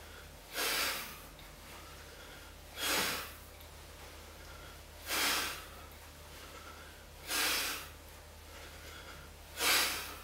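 A man breathing out hard with each hanging straight-leg raise on a chin-up bar: five forceful exhalations, about one every two seconds.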